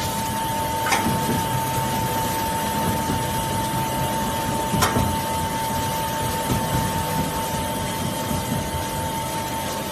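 Automatic rotary foam-cutting machine running with a steady whine over an even mechanical noise. Two short sharp clicks come about a second in and again near five seconds.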